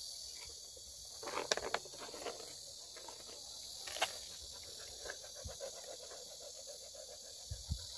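Jindo puppies play-fighting on wooden decking: soft panting, grunting and paws scuffling, with a couple of low thumps near the end. A steady high insect chirring runs behind.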